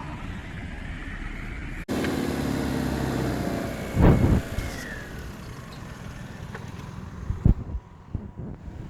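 Tata Indigo CS sedan driving over rough ground, its engine running steadily. The sound breaks off abruptly about two seconds in and comes back louder. Two heavy thuds come about four and seven and a half seconds in.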